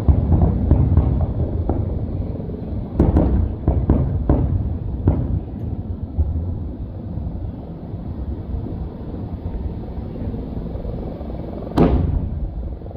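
Fireworks display going off: a continuous low rumble of booms, a cluster of sharp bangs and crackles about three to five seconds in, and one loud sharp bang near the end.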